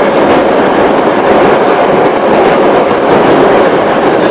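Steady, loud running noise of a Metrowagonmash 81-717/714 metro train under way, heard from inside the passenger car: wheels running on the rails and the car rattling.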